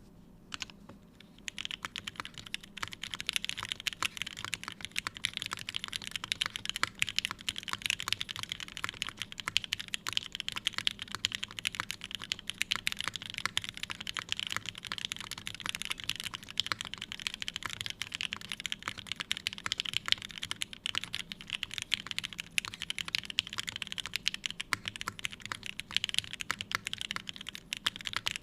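Emery65 mechanical keyboard with lubed Gateron Ink linear switches in an aluminium plate and GMK keycaps being typed on in a fast, steady stream of keystrokes. After a couple of single clicks, the typing starts in earnest about a second and a half in.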